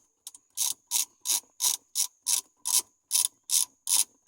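Socket ratchet with a 12 mm socket on a long extension, clicking in quick, even back-and-forth strokes, about three a second, as it backs out one of the four bolts holding the automatic shifter.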